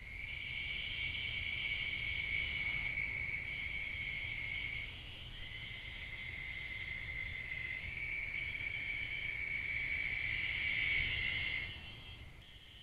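Night insect chorus trilling steadily at a high pitch, then dropping away about a second before the end.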